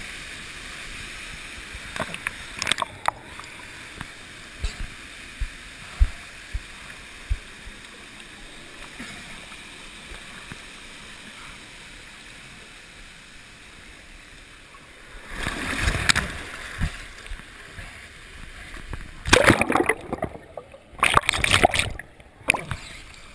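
Water rushing down a water slide around the rider, with scattered bumps and knocks. It is followed by loud splashing and gurgling as he plunges into the pool, first about two-thirds of the way in and again near the end.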